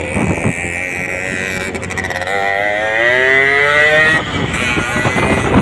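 Motorcycle engine speeding up on the road, its pitch rising smoothly for about two seconds from near the middle, over steady wind and road noise.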